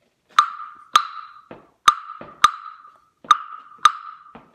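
A pair of wooden claves struck six times, in three pairs of knocks, each strike ringing on briefly with a clear note. The lower clave rests in a cupped hand, and that little cavity gives the clave a richer, more resonant sound.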